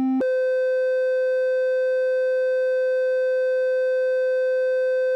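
Make Noise DPO oscillator B's sine output, not a pure sine but with a bit of harmonic content, jumps up an octave from a low C just after the start and holds the higher C steadily. That upper octave is way out of tune: the oscillator's tuning needs calibrating.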